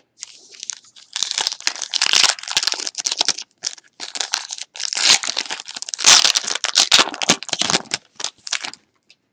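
A Donruss basketball card pack's wrapper being torn open and crinkled by hand: crackling that starts about a second in and stops just before the end.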